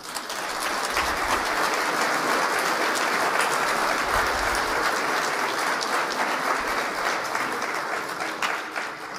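Audience applauding: many hands clapping at once, steady, then tapering off near the end.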